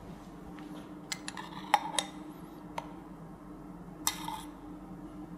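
Metal spoon clinking against a small copper saucepan as cream is scooped from it: a few sharp ticks over the first three seconds and a short clatter about four seconds in, over a steady low hum.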